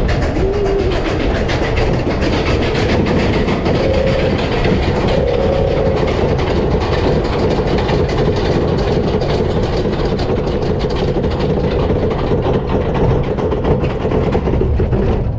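Roller coaster train being hauled up the chain lift hill: the lift chain and track clatter rapidly and continuously, over a steady hum from the lift drive.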